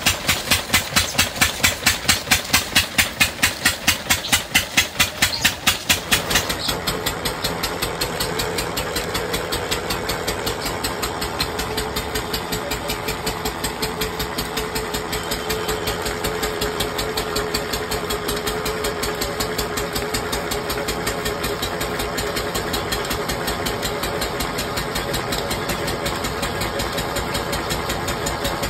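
A noodle extruding machine running, knocking loudly and evenly about four to five times a second. About six seconds in the sound cuts to a quieter, steadier machine running.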